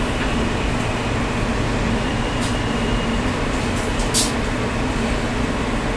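Inside a New York City subway car running into a station: steady rumble of the wheels and running gear, with a short sharp hiss about four seconds in.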